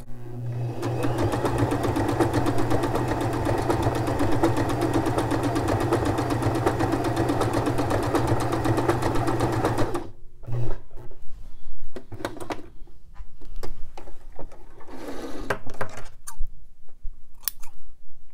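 Domestic sewing machine running steadily at speed for about ten seconds as it sews a stretch stitch on lycra fabric, then stopping suddenly. Scattered clicks and knocks follow as the fabric is taken out from under the presser foot.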